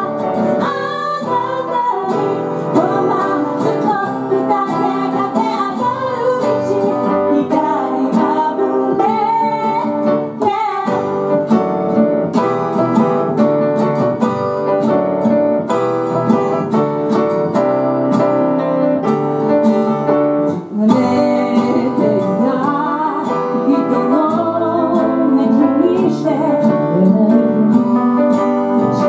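A woman singing a song to acoustic guitar with grand piano accompaniment, played live, with two brief breaks in the music.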